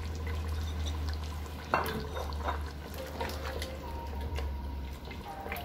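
A silicone spatula stirring chunks of potato through a wet tomato curry in a nonstick pot, with wet squelching, small scrapes and one sharper knock about two seconds in, over a steady low hum.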